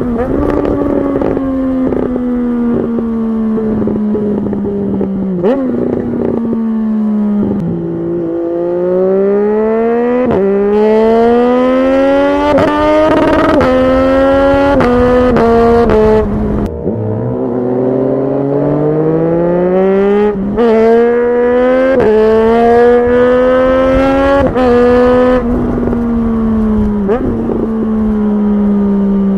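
Triumph Street Triple 765's inline three-cylinder engine revving up through the gears, its pitch climbing and stepping down at each upshift. The throttle shuts off sharply about two-thirds of the way through, then the engine pulls hard through the gears again and winds down near the end as the bike slows.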